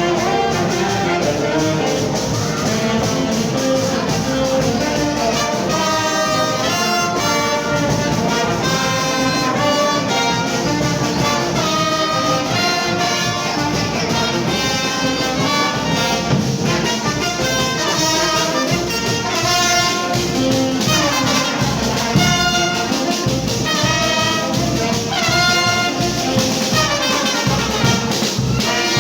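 Brass orchestra playing, trumpets and trombones carrying the tune, at a steady full level throughout.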